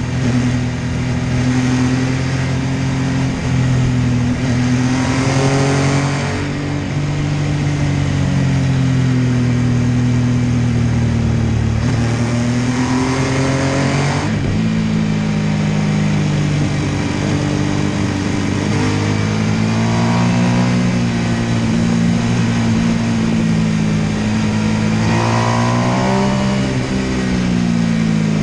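MV Agusta F3 800's inline three-cylinder engine pulling the bike along, its note rising and falling with the throttle, with three sharper climbs in pitch as it is revved up through the gears.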